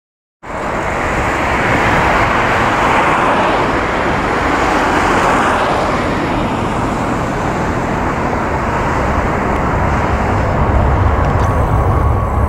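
Boeing 777 twin-jet airliner at takeoff thrust: a loud, steady jet roar that cuts in about half a second in, as it lifts off and climbs out. The low rumble grows deeper near the end.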